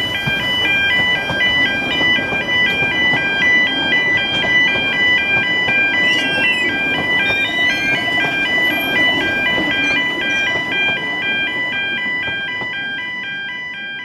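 Level-crossing warning alarm sounding a rapid two-tone alternating beep that stops near the end, over the rumble of narrow-gauge railway carriages rolling past.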